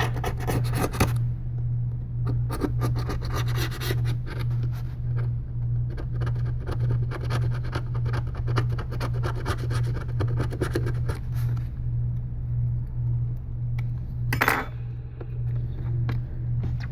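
A flat tool scraping leftover adhesive and glass fragments off an iPad mini 3's frame: dense runs of small scratches and clicks, then one sharper scrape about fourteen and a half seconds in. A steady low hum runs underneath.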